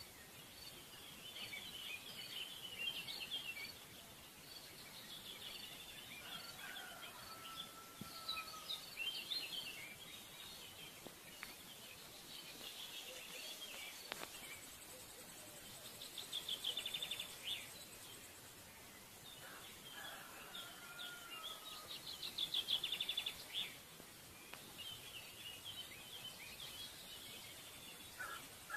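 Birds chirping and singing over a faint steady hiss, with several rapid trills and a few falling whistled notes.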